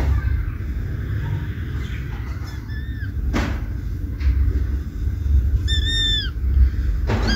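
A kitten gives short, high-pitched meows that hold and then drop in pitch: a faint one about three seconds in and a clearer one about six seconds in. Under them run a steady low rumble and a few soft knocks.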